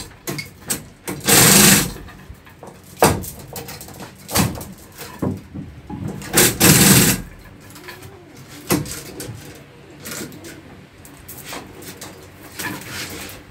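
A chain hoist's chains rattling as a heavy engine hanging from them is lowered and worked into place, in two short loud bursts about a second and about six seconds in. Sharp metal knocks and clanks come in between.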